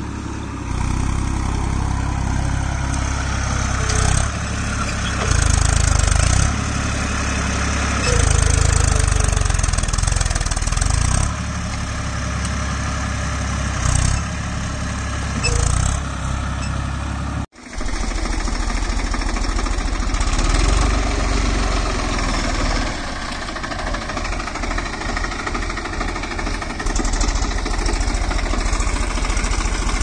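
Massey Ferguson tractor's diesel engine running under load in a paddy field, its note swelling and easing several times in the first half. The sound breaks off for an instant a little past halfway, then the engine runs on steadily.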